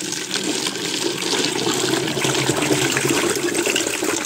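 Kvass mixture of water, sugar, yeast and chicory pouring in a steady stream from a bowl through a funnel into a plastic bottle, splashing into the liquid as it fills.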